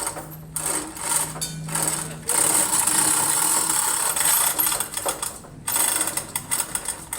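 Rapid, rattling mechanical clatter of a tool or ratchet-type mechanism working, in bouts broken by short pauses, the longest a little over five seconds in.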